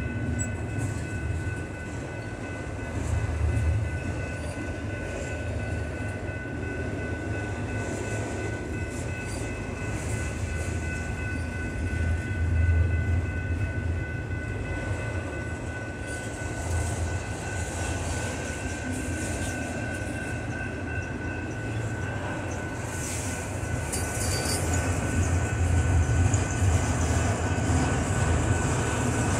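Train rolling by: a steady low rumble of wheels on the rails, with a thin steady high-pitched tone over it.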